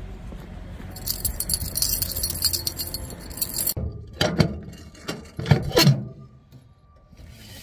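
Keys jangling for a few seconds, then several sharp metallic clicks and clanks as a mailbox is unlocked and its door opened.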